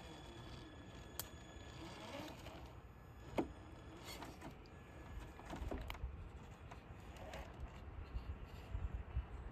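Faint whirring of a Traxxas TRX-4 RC crawler's electric motor and gears as it inches over a log, with scattered clicks and knocks, the sharpest about three and a half seconds in.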